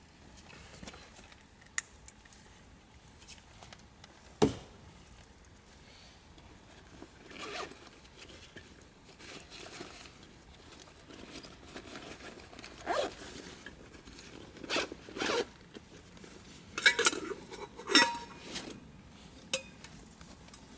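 Backpack zippers being pulled open and gear handled inside the pack, in short rasping strokes that come thickest in the second half, with a single sharp knock about four seconds in.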